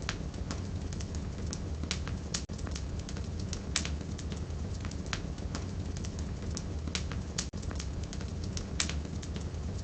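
Wood fire burning in a fireplace: a steady low rumble and hiss with constant crackling and a few sharp, louder pops. The sound cuts out for an instant twice.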